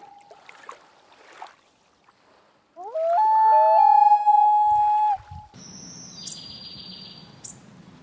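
Common loon wailing: a long call that slides up and then holds one pitch for about two and a half seconds, with the fading end of an earlier wail at the start. After it, a quieter high steady whistle with two short rising chirps.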